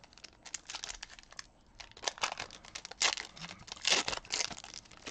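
A baseball-card pack's foil wrapper being torn open and crinkled by hand: irregular crackly rustles, bunched into clusters about two, three and four seconds in.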